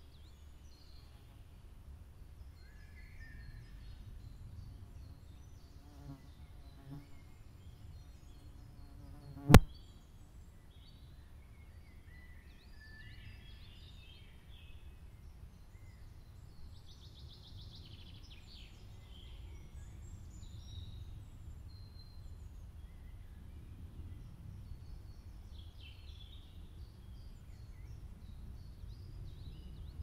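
Outdoor nature ambience: a low steady rumble with scattered faint bird chirps and an insect buzzing briefly about six seconds in. A single sharp click about ten seconds in is the loudest sound.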